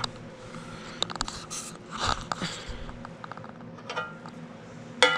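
Handling of unpacked aluminium parts: plastic wrapping rustling, with scattered light clicks and knocks of metal pieces.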